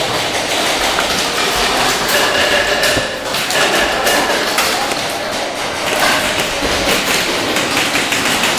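Airsoft gunfire: electric airsoft guns firing in rapid bursts, a dense clatter with scattered sharp knocks and a faint high whine.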